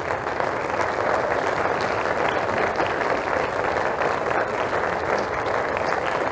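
An audience applauding steadily as members stand to be recognized.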